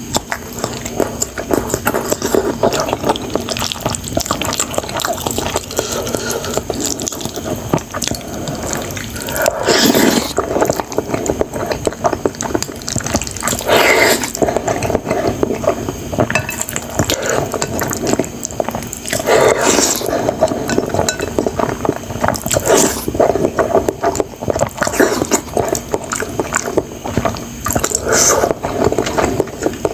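Close-miked mukbang eating of instant noodles in spicy sauce: continuous wet chewing and slurping, with louder swells every few seconds.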